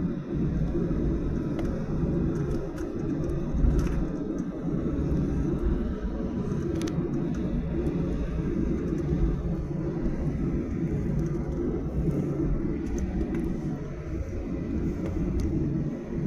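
Boeing 737-800 cabin noise: a steady low rumble of the aircraft and its engines heard from inside the cabin, with a few faint knocks and clicks, the clearest about four seconds in.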